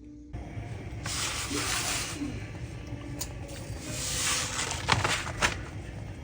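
Rubbing, rustling handling noise in two hissing stretches, each about a second long, with a few sharp clicks in between.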